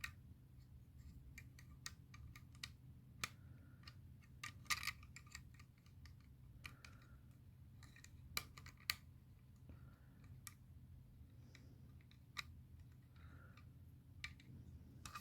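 Plastic puzzle pieces clicking and tapping faintly as they are handled and fitted together, in scattered irregular clicks that are a little louder about five and nine seconds in. A faint low hum runs underneath.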